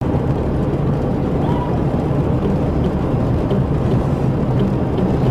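Steady road and engine noise of a car driving along a highway, heard from inside the cabin: an even, low rumble with no change in pitch.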